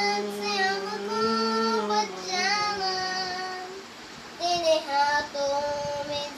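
A boy singing a Hindi Christian devotional song, holding long notes, with a brief pause a little after halfway before he sings on.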